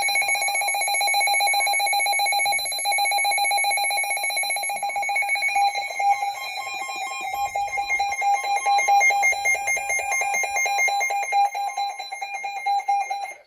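Weather alert radio's built-in alarm going off for a new severe thunderstorm warning: a loud, high-pitched electronic tone pulsing very rapidly, held for about thirteen seconds and cutting off suddenly near the end.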